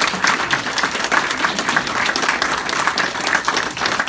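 Audience applauding: many people clapping together in a small room, a dense, steady patter of claps.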